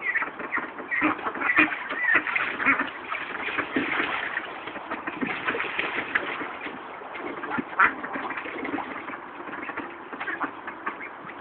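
Khaki Campbell and Indian Runner ducks quacking over and over, with splashing as they bathe in a paddling pool. One sharp, louder sound comes about eight seconds in.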